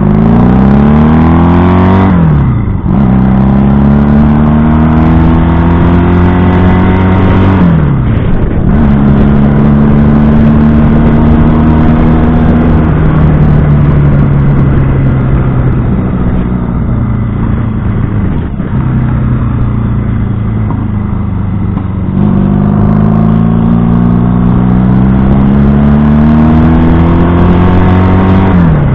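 1970 Honda CB175's parallel-twin engine under way, accelerating through the gears: the revs rise and drop sharply at upshifts about two seconds in and around eight seconds, hold fairly steady while cruising, dip again past the middle, then climb to another shift near the end.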